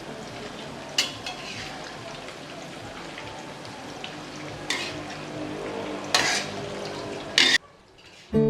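Battered tofu fritters frying in hot oil with a steady sizzle, and a utensil clinking and scraping against the pan a few times as they are turned. The sizzle cuts off suddenly near the end.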